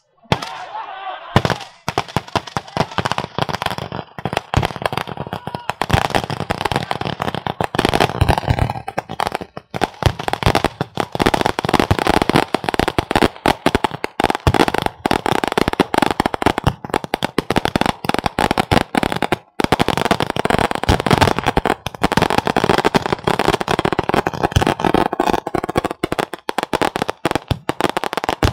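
Long strings of firecrackers hanging beneath a rising hot-air balloon, going off in a dense, continuous crackle of rapid bangs that starts about a second and a half in.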